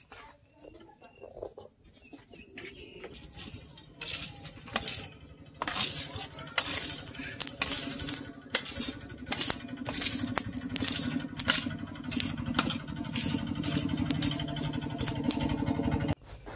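Charcoal forge's air blower starts running about six seconds in with a steady low hum, fanning the coals, while a metal poker rakes the charcoal with repeated sharp clinks and scrapes; the hum cuts off suddenly near the end. The first seconds hold only a few faint clicks.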